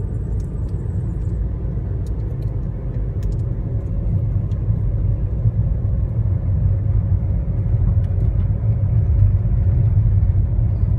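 Steady low rumble of a car's road and engine noise, heard from inside the moving car's cabin, growing slightly louder near the end.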